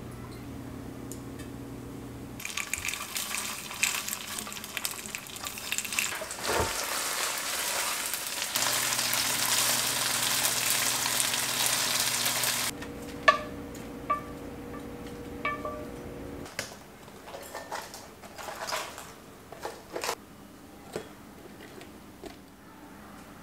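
Tofu slices sizzling as they fry in oil in a pan, starting a couple of seconds in and stopping abruptly about thirteen seconds in. After that come light clinks and scattered taps of dishes and utensils.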